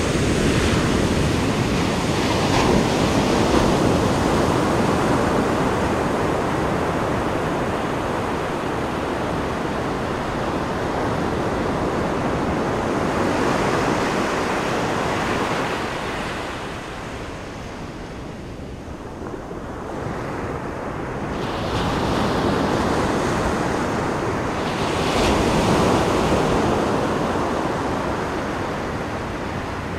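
Ocean surf washing onto a beach, a steady rush of water that swells and fades in slow surges several seconds apart.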